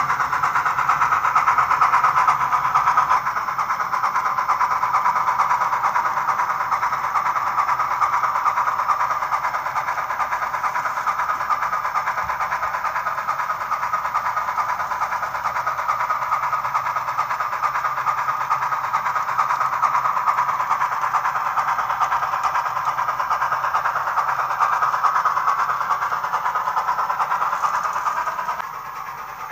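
Steam locomotive running sound from a Soundtraxx Tsunami2 sound decoder, played through the small speaker of an HO scale 2-8-2 Mikado model as it pulls a train. It runs steadily and gets quieter near the end.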